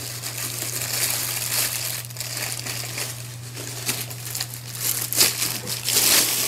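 Clear plastic packaging bag crinkling and rustling as it is handled and pulled from a box, loudest in bursts about five and six seconds in.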